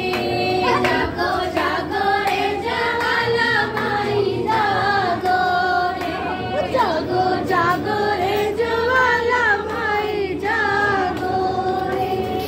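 Women singing a devotional song together, holding long notes that slide from pitch to pitch.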